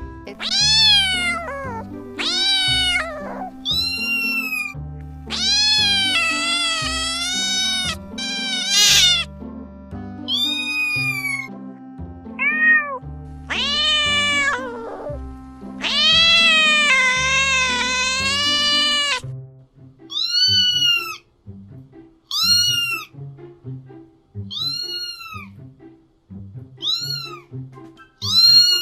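Kitten meowing over background music. Long, drawn-out meows fill the first two-thirds, then short, high meows come about once a second.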